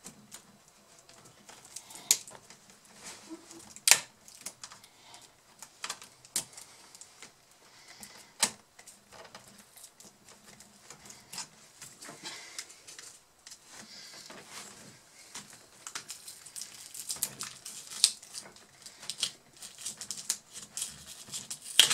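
Irregular sharp clicks and light taps of small plastic and metal laptop parts and hand tools being handled during a keyboard replacement. A few clicks stand out louder, the loudest near the end.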